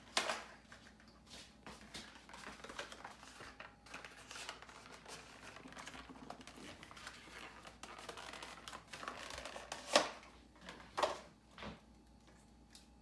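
Paper or gift wrapping rustling and crinkling as a present is unwrapped, in irregular handling noise with a few sharper crackles, the loudest about ten and eleven seconds in.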